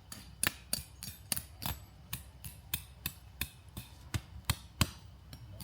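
A tent peg being hammered into the ground with a mallet: a quick run of sharp strikes, about three a second.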